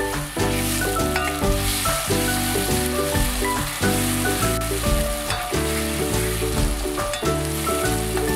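Chopped tomato, onion, garlic and tomato paste sizzling in oil in a frying pan as a spatula stirs them. Background music of short stepping notes plays throughout.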